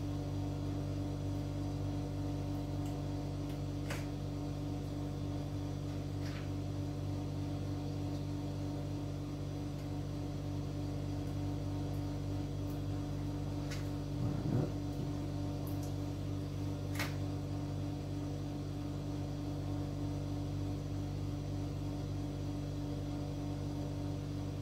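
Steady electrical hum of several low tones, with a few faint clicks and taps from small parts being handled.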